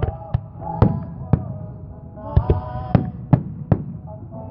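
Aerial firework shells bursting in a string of sharp bangs, about nine in four and a half seconds, with music playing in the background.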